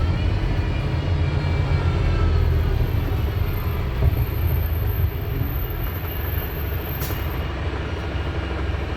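Wright StreetDeck double-decker bus with a Mercedes-Benz OM934 four-cylinder diesel, heard from on board while driving: a steady low rumble from the engine and drivetrain, with faint whining tones over it. A thin high whistle comes in a few seconds in and stops near the end, with a sharp click just before it stops.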